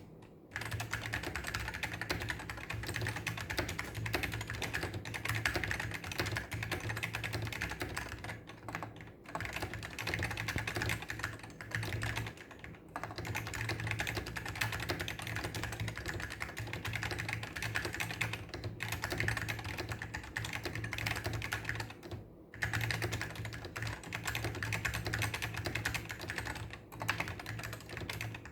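Fast continuous typing on a Focus FK-2000 Plus mechanical keyboard with white Alps SKCM switches, linearized and wax-modded, so the keys clack without any click, broken by a few short pauses.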